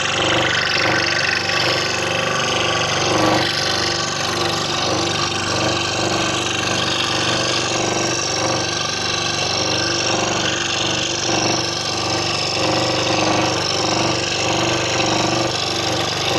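Scroll saw running steadily, its blade cutting wooden jigsaw puzzle pieces.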